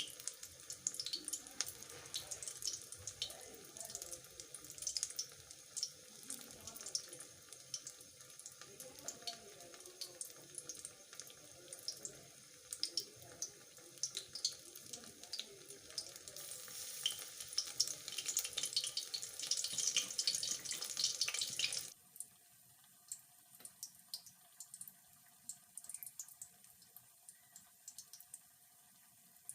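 Battered stuffed gourd sizzling and crackling in hot oil as it fries. The sizzle swells louder, then about 22 seconds in drops suddenly to a fainter, sparser crackle.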